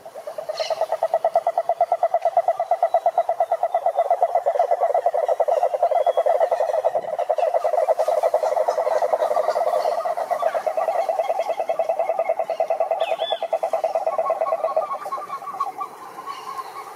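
A frog calling with one long, fast trill, a rapid run of pulses on a single pitch, starting about half a second in and weakening near the end.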